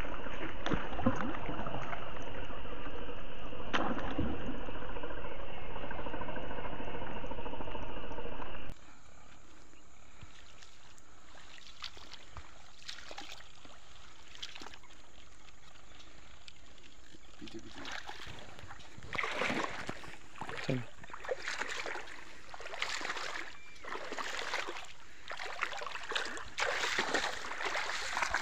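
A loud, steady rushing noise that cuts off abruptly about nine seconds in. After it comes a quiet stretch, then from about two-thirds of the way through irregular splashes and sloshing as a hooked snakehead thrashes at the water's surface on the line.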